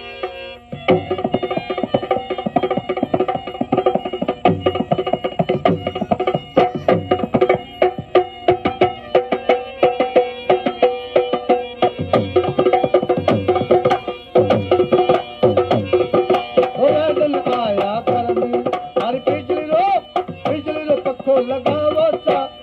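Rajasthani folk music for Kalbeliya dance: a hand drum beats a fast rhythm under a held melody line with a steady drone. From about 17 seconds in, the melody bends and wavers.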